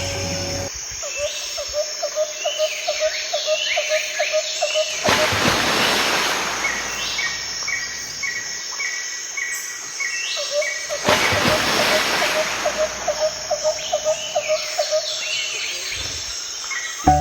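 Outdoor nature ambience: birds chirping and an insect trill, with a rhythmic run of lower chirps about four a second and two swells of rushing noise about six seconds apart.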